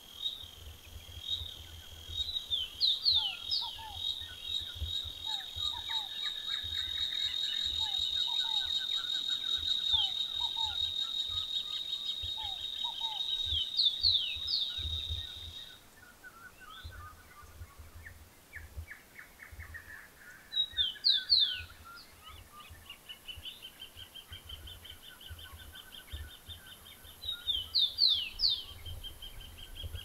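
Birds calling in scrubland over a cicada's steady high buzz. The buzz cuts off suddenly about halfway, and a fainter buzz comes in later. The loudest sounds are short clusters of quick, high, downward-sweeping whistled notes a few times, with softer repeated bird notes lower down.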